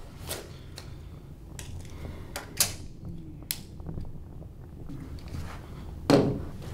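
Handling noise from a Canon Rebel T5 DSLR and its padded case: a few scattered clicks and rustles, with one louder knock about six seconds in.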